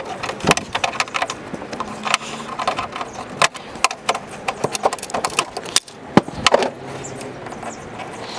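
Irregular sharp clicks, taps and scrapes of plastic being worked by hand and with a small tool: prying up the locking tabs of the wiring connectors behind a car's front bumper cover.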